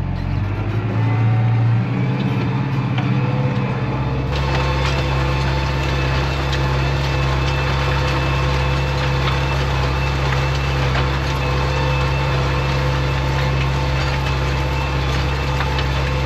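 Tractor engine running steadily while working, its note shifting over the first few seconds. From about four seconds in, a rattling clatter joins it.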